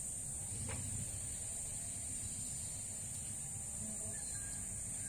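Steady high-pitched insect drone from crickets or cicadas, over a low rumble. A faint tap sounds just under a second in.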